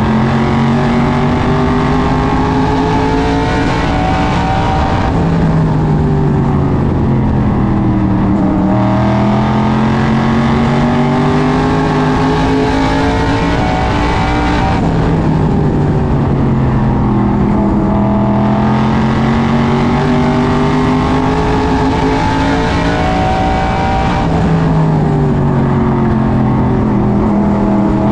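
SK Modified race car's V8 engine heard from inside the cockpit at racing speed, its pitch climbing steadily for several seconds and then dropping sharply, about three times over: full throttle down the straights and a lift for each turn.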